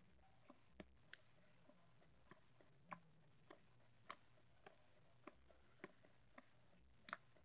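Faint, sharp little clicks and pops, about a dozen at roughly two a second, as a hand squeezes and presses FLARP noise putty; the loudest comes near the end.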